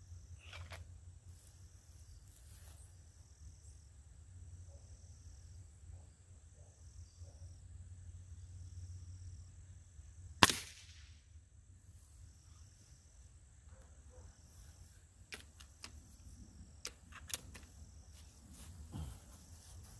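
A single shot from a Gamo Wildcat Whisperer .177 break-barrel pellet rifle about halfway through: one sharp crack with a short tail. A few faint clicks follow near the end.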